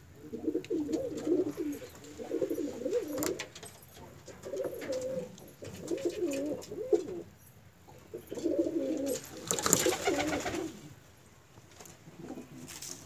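Domestic pigeons cooing: repeated low warbling coos in phrases of about a second, with short pauses between them. A short burst of rustling noise breaks in about three-quarters of the way through.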